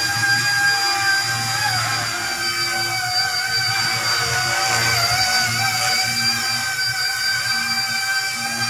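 Eachine E129 micro RC helicopter in flight: its electric motor and spinning rotor give a steady high whine that dips briefly in pitch about two seconds and again about five seconds in as the throttle changes.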